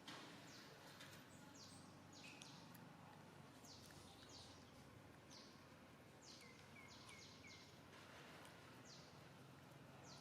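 Faint outdoor ambience with many short, high chirps from small birds calling off and on, each chirp sliding quickly downward in pitch; a brief knock right at the start.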